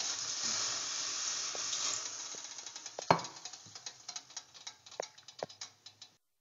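Water poured onto a red-hot electric stove coil, sizzling and hissing as it flashes to steam. It is loud at first, then over a few seconds fades into scattered crackles and pops, with one sharp click about three seconds in.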